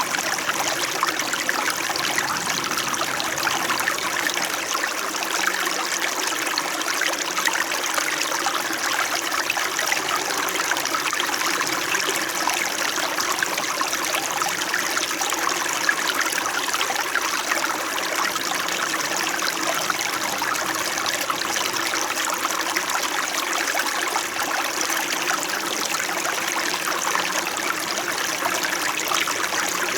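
Small winter mountain stream flowing steadily, its water babbling and trickling over rocks.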